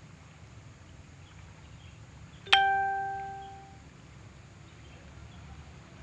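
A single clear bell-like ding about two and a half seconds in, ringing out and fading over about a second, over faint outdoor background.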